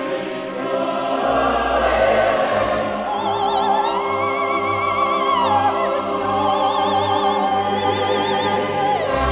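Operatic music: choir and orchestra, then a high solo voice holding long notes with a wide vibrato, entering about three seconds in, with a falling glide near the end.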